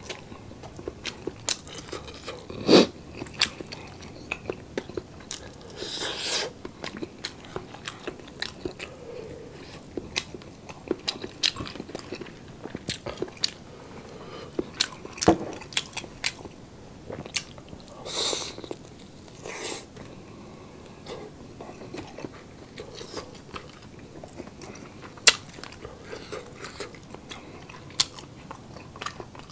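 Close-miked chewing and biting of roast chicken, with many sharp, wet mouth clicks and smacks and a few longer noisy mouth sounds.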